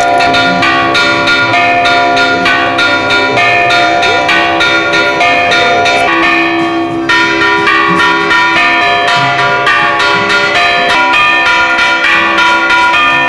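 Church bells ringing in a fast, continuous peal, with many rapid strikes and overlapping ringing tones.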